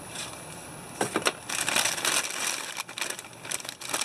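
Packaging crinkling and rustling, with a few sharp clicks about a second in, as a new, sealed oil filter is unpacked by hand.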